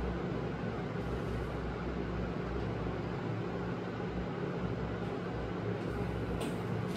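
Steady room noise: a low, even hum with hiss, and a few faint short clicks near the end.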